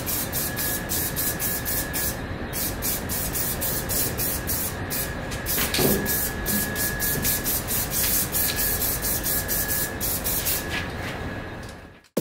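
Aerosol spray-paint can hissing in short, rapid bursts, about four a second, over a continuous hiss, with a thin steady whistle underneath. It stops abruptly near the end.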